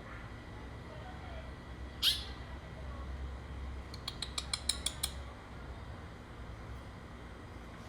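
Pet songbird of the kind called 'culo blanco' calling: one short, sharp, loud call about two seconds in, then a quick run of about nine clipped notes lasting about a second.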